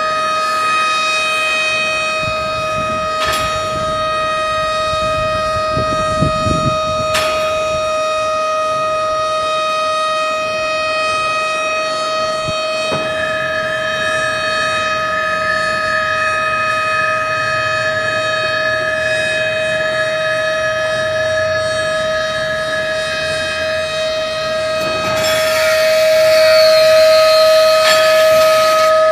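Experimental noise music: a loud, unwavering pitched drone with overtones, built from processed recordings. A few sharp clicks come in the first seconds, a second higher tone joins about halfway through, and a burst of harsh hiss rises over it near the end.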